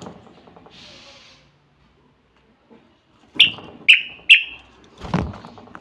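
Caged common bulbul giving three loud, clipped whistled notes about half a second apart, then a thump near the end.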